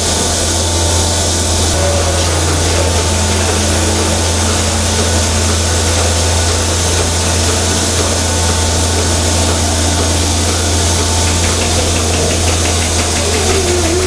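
Robotic milking machine running with its teat cups on a cow: a steady low hum with an even hiss of air over it.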